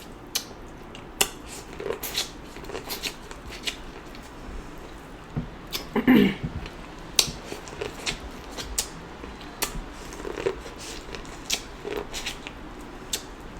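Close-miked chewing of corn on the cob: crisp, irregular clicks and wet mouth sounds, with a short vocal sound about six seconds in.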